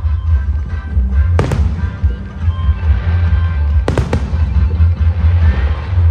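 Fireworks bursting overhead: a sharp bang about a second and a half in, then two bangs close together about four seconds in, over a continuous low rumble.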